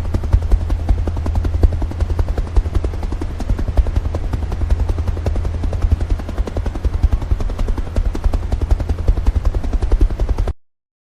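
Helicopter flying: a rapid, steady rotor-blade chop over a deep drone, cutting off suddenly near the end.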